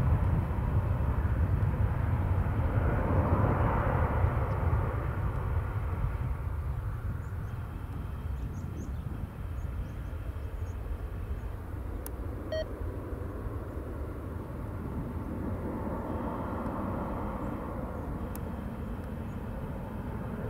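Airbus A320-232 jet, with its IAE V2500 turbofans at take-off thrust, lifting off and climbing away. A deep rumble fades over the first several seconds as the jet gains height, then holds steady and fainter.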